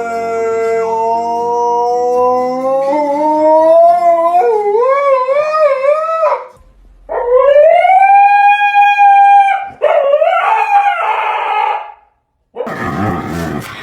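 A dog howling in long drawn-out howls. The first rises in pitch and then wavers; a steadier, higher howl and a short wavering one follow. After a brief silence near the end, lower wavering howls start.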